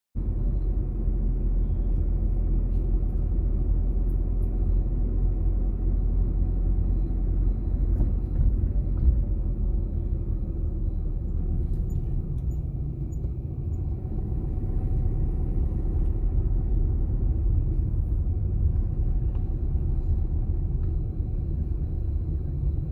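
Steady low rumble of a car on the move, road and engine noise, starting abruptly.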